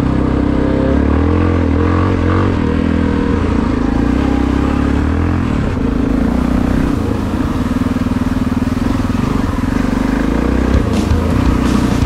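Yamaha Ténéré adventure motorcycle engine running at a steady, moderate speed under the rider, rising and falling only slightly. A run of sharp knocks comes in near the end.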